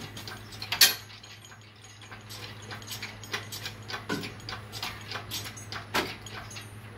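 Scattered metallic clicks and ticks from an engine hoist and its lifting chain as the engine is lifted out of the engine bay, with sharper clicks about a second in and near six seconds, over a steady low hum.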